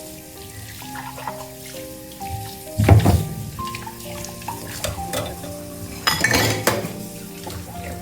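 Soft background music with held notes, over a clatter of hard objects: one loud knock about three seconds in and a quick run of clinks around six seconds in.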